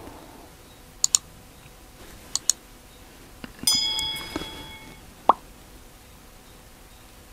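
Subscribe-button animation sound effects: two pairs of quick mouse clicks, then a bell ding that rings for about a second, followed by two short pops.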